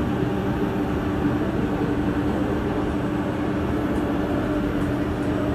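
Singapore MRT train running, heard from inside the carriage: even rolling noise under a steady low hum.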